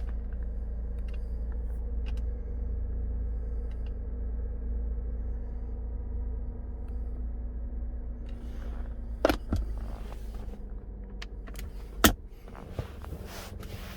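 A 2010 Holden Commodore wagon's engine idling steadily after being started, heard from inside the cabin. Two sharp knocks come about nine and twelve seconds in.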